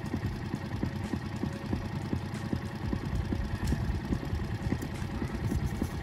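Wind buffeting the microphone out on open water: a continuous low, uneven rumble with many small irregular thumps.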